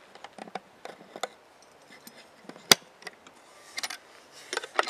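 A small wooden tool box being opened by hand: the brass latch clicking, the lid lifting and hand tools knocking and clinking inside the box. A scatter of light clicks and knocks, with one sharp click a little past halfway the loudest.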